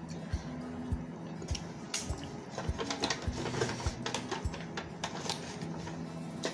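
Soft background music with a steady low beat. From about a second and a half in, close crackly clicks of shrimp being shelled and eaten by hand.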